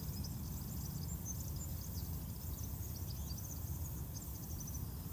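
Small birds chirping and twittering in quick, high-pitched, scattered calls over a low, steady rumble of outdoor background noise.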